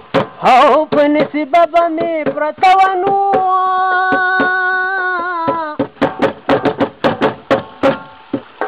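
Music: a voice singing a wavering melody, holding one long note through the middle, over quick percussion strikes.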